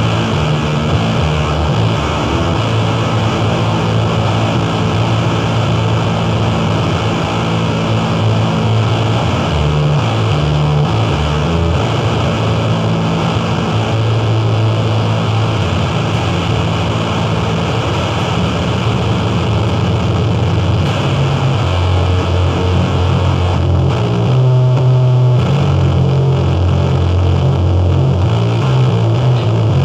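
Noise music: a loud, dense wall of distorted, effects-processed noise over a low drone that shifts pitch in steps. The drone briefly drops away and changes about three quarters of the way through.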